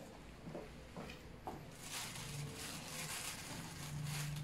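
A cocker spaniel eating meat off a plate, chewing and licking with wet smacks and clicks that grow busier from about two seconds in. A low hum comes in near the end.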